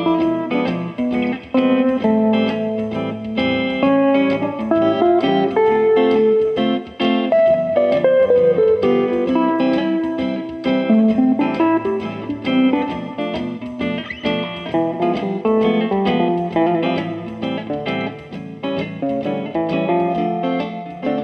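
Höfner Wandergitarre amplified through a single-coil pickup, played as a bluesy run of plucked single notes and chords, with a few notes slid down and up in pitch about eight and eleven seconds in.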